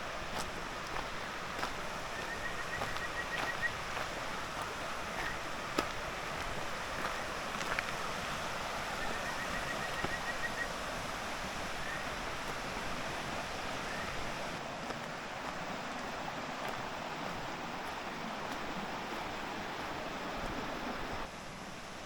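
A mountain stream rushing steadily over rocks. Twice a short, rapid high trill rises above it.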